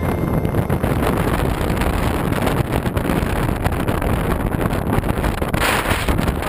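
Wind buffeting the camera's microphone: a steady, loud, uneven rushing noise that turns hissier near the end.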